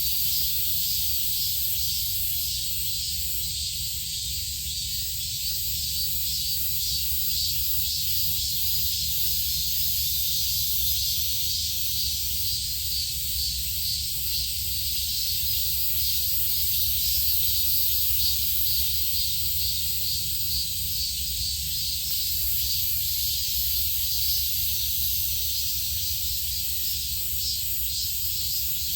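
Steady outdoor ambience: an even high hiss over a low rumble, with no distinct calls or sudden sounds.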